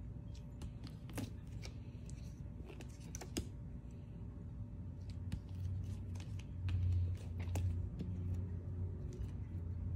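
Hardcover books being handled and swapped by hand: scattered light clicks and taps of the covers and their plastic wrap, over a low steady hum that grows louder a little past the middle.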